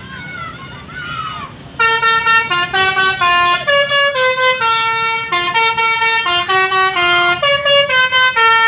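A bus's basuri musical air horn playing a fast tune of short steady notes stepping up and down in pitch, loud, starting about two seconds in. Before it, and at moments over it, high calls rise and fall.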